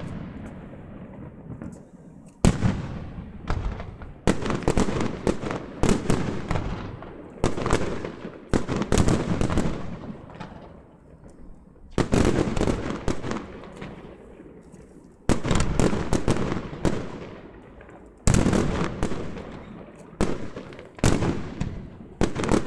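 Aerial fireworks bursting one after another: sharp bangs every second or few, each trailing off in a long fading rumble, with clusters of quick crackling pops in between.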